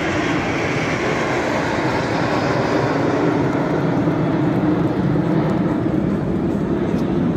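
Jet roar from a formation of nine Hawk jet trainers of the Suryakiran aerobatic team flying past. It is a loud, steady rush of noise whose higher part fades from about three seconds in as the formation draws away.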